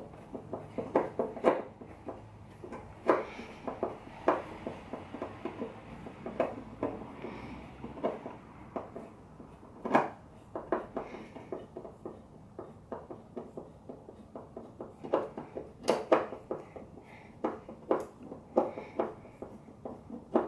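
Irregular light clicks and knocks of a hand tool working the screws that hold a Jeep Wrangler tail light, loosening them to take the light out, with a few sharper clicks now and then.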